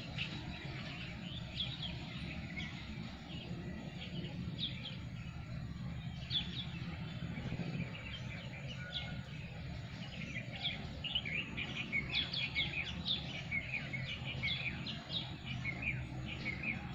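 Small birds chirping in short high calls, getting busier in the second half, over a steady low background hum.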